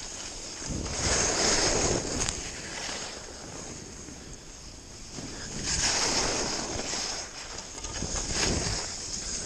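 Skis scraping and hissing over hard, icy piste snow while skiing downhill, with wind rushing over the microphone. The rush swells in surges, loudest about a second in and again around six seconds.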